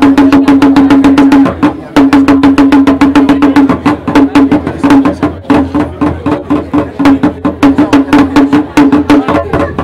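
A Ga talking drum beaten rapidly with a curved wooden stick, many strokes a second, each ringing at the same pitch, with a short break under two seconds in. It is played to signal the start of the Gbemlilaa ban on drumming and noise-making.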